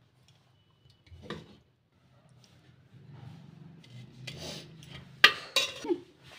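Steel spoon stirring thick curry in a ceramic bowl, rubbing and scraping against the bowl, with a few sharp, louder scrapes about five seconds in.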